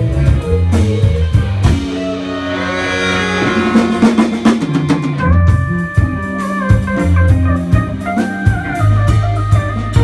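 Live band playing an instrumental passage: drum kit, electric bass and electric guitar, with a held melody line that steps in pitch entering about five seconds in.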